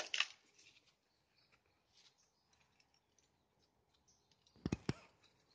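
Handling noise from a plastic oil container: a sharp knock at the start, scattered light clicks, and two quick thumps near the end as it is knocked or set down.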